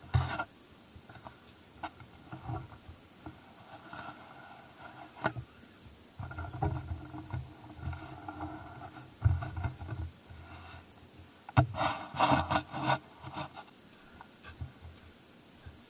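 Handling noise on the camera rig: irregular rubbing and scraping with scattered knocks, and a quick cluster of clatter about three-quarters of the way through.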